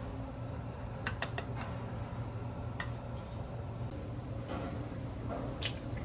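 Kitchenware clinking lightly, a handful of short sharp clinks, over a steady low hum.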